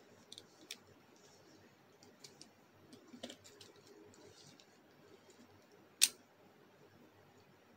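Hard plastic parts of a Bakugan Geoforge Dragonoid combiner toy clicking as they are pulled off and snapped back on, with faint handling. A few light clicks, and one sharper click about six seconds in.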